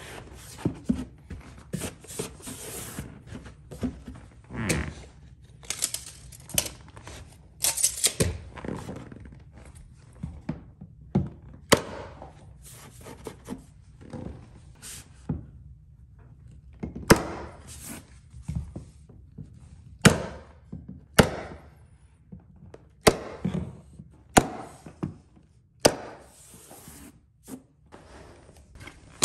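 Carpet padding and runner rustling and scraping as they are handled, with scattered knocks. From about eleven seconds in comes a series of sharp, single staple shots a second or more apart as the runner is stapled down.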